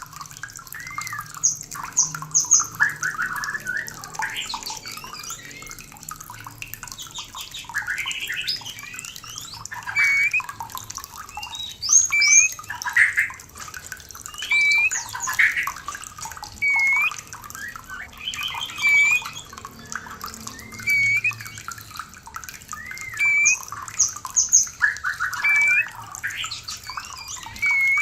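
White-rumped shama (murai batu) in breeding condition singing a loud, varied song of whistled phrases and chattering notes, with one short curved whistle repeated many times, over a steady hiss.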